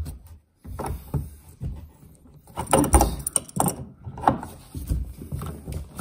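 An adjustable wrench loosening the brass nut on a faucet handle valve inside the wall: irregular metal clicks and knocks as the wrench is set and turned, with handling and scraping in between.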